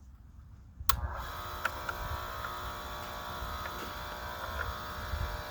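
Electric key-duplicating machine switched on with a click about a second in, its cutter motor then running with a steady hum and a few faint ticks.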